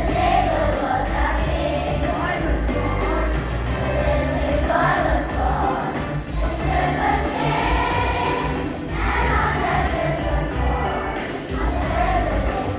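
Music: a choir singing a song over instrumental backing with a steady bass line and jingling percussion.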